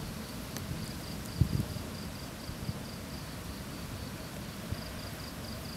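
An insect chirping in an even pulse of about five chirps a second, over a low rumble of wind on the microphone. A brief low thump about a second and a half in.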